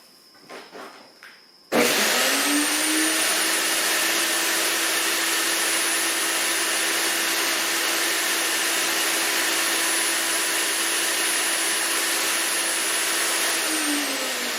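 Earthwise GS70015 electric wood chipper switched on: the motor starts abruptly, climbs to speed in about a second and runs at a steady speed with a high whine over a hum. Near the end it is switched off, and the whine falls as it winds down.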